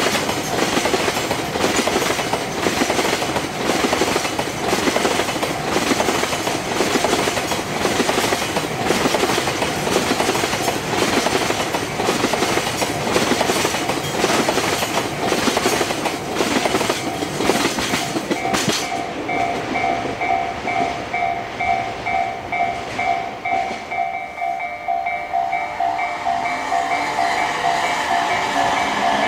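An electric train passes over a level crossing, its wheels clacking evenly over the rail joints, while the crossing's warning bell rings in a steady repeating ding. The train's noise drops away about two-thirds of the way through, leaving the bell ringing on its own, and a rising whine begins near the end.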